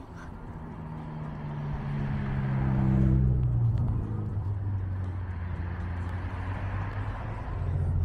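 A motor vehicle drives past, loudest about three seconds in, its engine note dropping in pitch as it goes by. A low engine hum carries on after it and grows louder again near the end.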